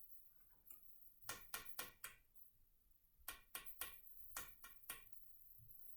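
Faint handling of tarot cards: two quick runs of light clicks and taps, about four and then about six, as cards are drawn and laid down.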